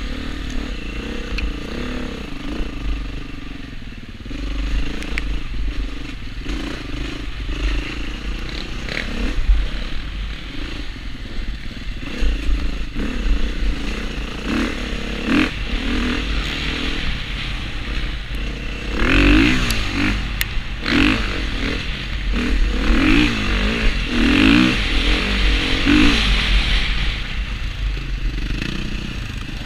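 Dirt bike engine under way on a rough trail, heard from a helmet camera with wind rumble on the microphone. The revs rise and fall repeatedly, most strongly in the second half, with clatter from the bike over rough ground.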